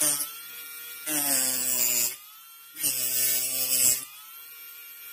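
12 V DC mini rotary grinder (18,000 rpm) fitted with a cutting disc, running with a steady high whine. The whine swells louder and harsher briefly at the start, then twice more for about a second each.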